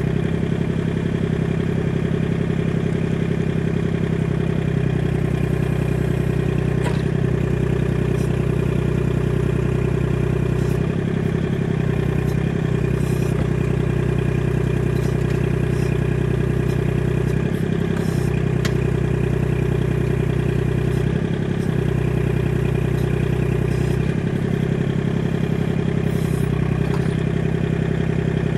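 Tractor engine running steadily at an even speed, with a few faint clicks over it.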